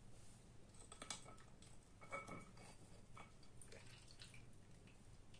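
Faint small clicks and clinks of wet brass faucet parts being handled, as a rubber washer is worked off the valve stem. Two of the clinks about two seconds in ring briefly.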